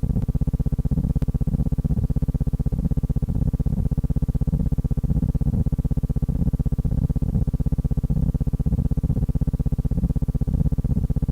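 Steady low buzzing hum made of a fast, even pulse, unchanging throughout.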